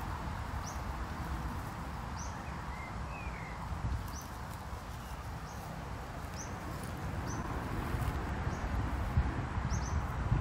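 A small bird chirping over and over in short, high notes, over a low rumble of wind on the microphone.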